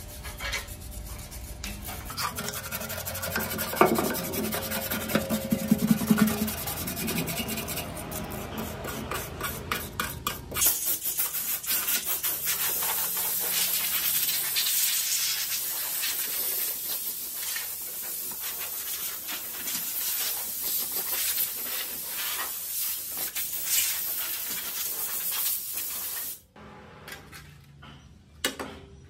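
Compressed air hissing steadily from a blow gun held against a rusty engine casing, starting about a third of the way in and cutting off abruptly near the end. Before it, hand tools knock and scrape on the rusty metal, with a few sharp loud knocks.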